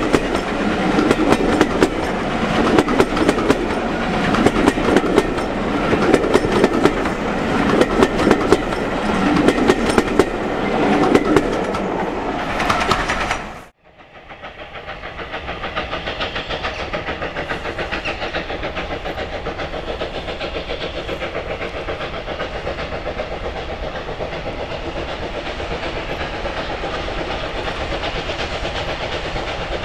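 Steam-hauled trains passing: wheels clattering over rail joints under a pulsing rumble, then about fourteen seconds in an abrupt cut to another passing train with a steady, fast, even beat.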